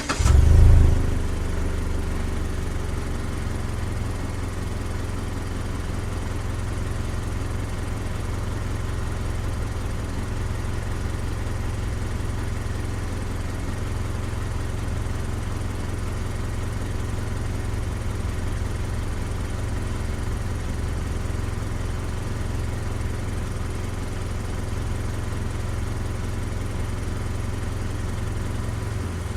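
Mazda CX-5 engine, heard from outside beside the car, catching with a brief flare of revs about a second in, then settling into a steady idle.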